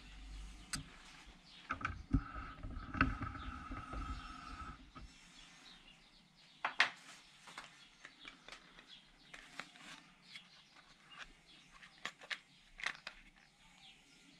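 Close handling noises: about three seconds of low rubbing and knocks, then scattered sharp clicks and taps.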